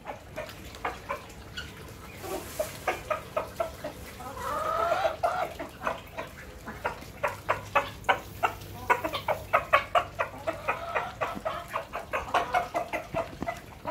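A black chicken pecking grain off a marble floor, its beak tapping the stone in quick, irregular ticks several times a second. About four seconds in it gives one drawn-out rising call.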